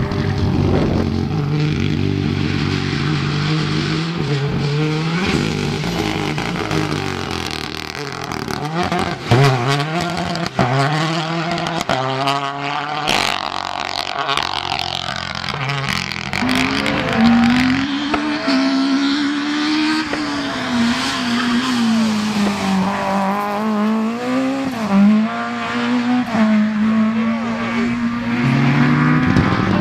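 Rally car engines revving hard and shifting through the gears as several cars pass one after another, the engine pitch climbing, dropping at each shift and holding high through the bends. A few sharp cracks come between about nine and thirteen seconds in.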